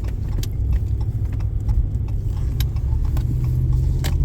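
Vehicle driving on the road: a steady low rumble with light rattles and clicks.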